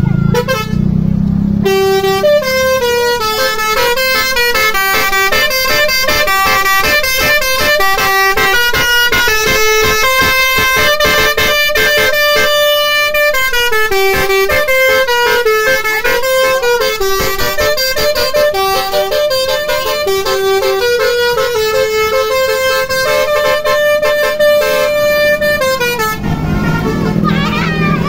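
Basuri musical horn set, a bank of roof-mounted trumpet horns, playing a loud melody of held, stepped notes. It starts about two seconds in and stops a couple of seconds before the end, leaving a low steady hum.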